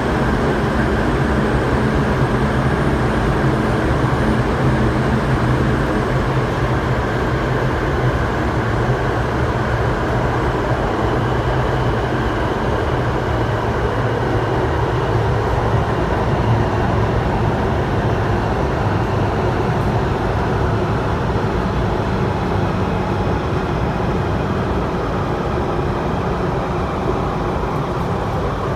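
SP1900 (IKK-Train) electric multiple unit running steadily at speed: continuous rumble of wheels on rail with a faint steady hum from the traction motors.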